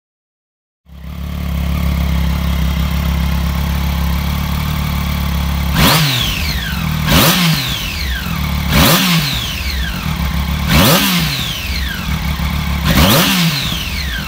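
Triumph Daytona 675's inline three-cylinder engine idling through its stock under-seat exhaust with the factory catalytic converter, starting about a second in. Five quick throttle blips follow, each rev rising sharply and falling back to idle.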